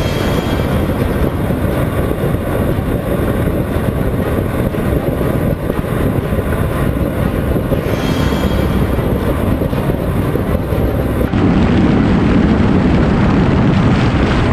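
Honda CBR 125R's single-cylinder four-stroke engine running at highway speed, buried in heavy wind rumble on the microphone. About eleven seconds in, the sound shifts abruptly to a louder, deeper wind rumble.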